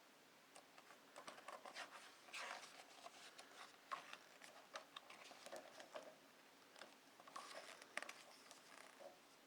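Faint paper rustling and light ticks of hands handling and turning the pages of a hardcover book, with a couple of sharper ticks about four and eight seconds in.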